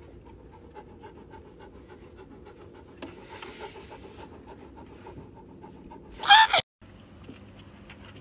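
Insects chirping in a steady rhythm of about three pulses a second. A short, loud pitched sound comes about six seconds in and cuts off abruptly.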